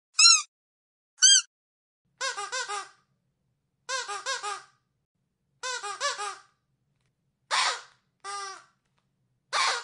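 Squeaky dog toy squeaked over and over. First come two single high squeaks, then three quick bursts of about four lower squeaks each. Near the end there are three shorter, rougher squeaks.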